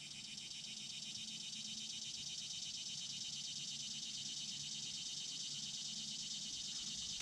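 A steady chorus of insects: a high-pitched, rapidly pulsing trill that slowly grows louder. A faint low hum runs beneath it.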